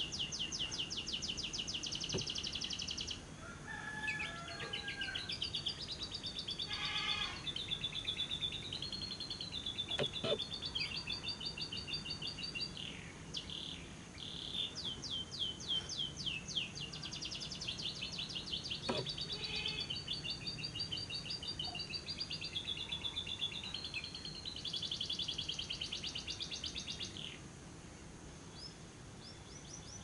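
Lovebird chattering in the long, fast trilling 'ngekek' song: rapid high-pitched notes strung into runs of several seconds with short breaks, dying down near the end.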